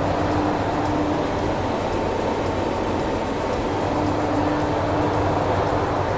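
Claas 498 forage harvester's diesel engine and driveline running with a steady, even drone and a low hum, with no change in pitch or level.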